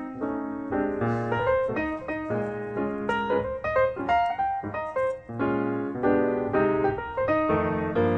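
Background piano music: a brisk melody played over chords, notes changing several times a second.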